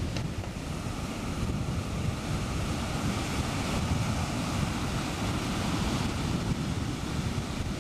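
Surf breaking and washing up a sandy beach, under strong wind buffeting the microphone with a steady low rumble.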